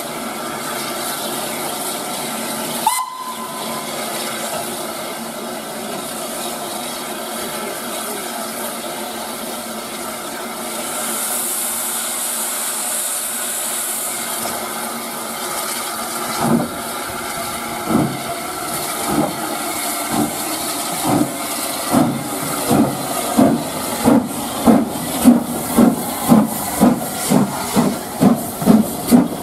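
Steam locomotive starting a train: a short whistle about three seconds in over the steady hiss of steam. From about halfway, exhaust beats begin slowly and quicken to about two a second, growing louder as the engine passes, with steam hissing from its cylinder drain cocks.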